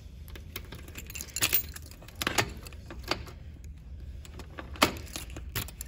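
A ring of keys jangling and a key scraping and clicking into a door's deadbolt lock cylinder as the door is unlocked, with a sharp click near the end.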